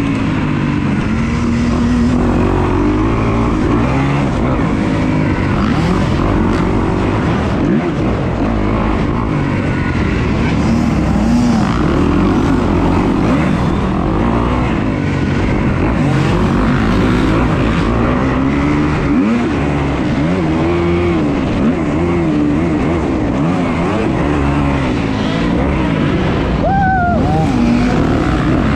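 Kawasaki dirt bike engine revving hard up and down without a break as the rider accelerates out of turns and backs off into them, heard from on the bike over a rush of wind.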